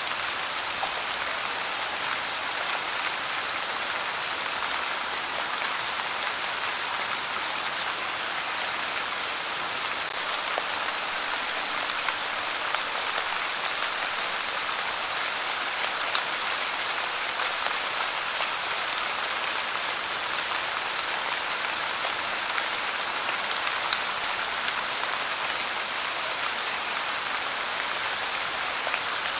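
Light rain falling steadily: an even hiss made of many small drop impacts, unchanging throughout.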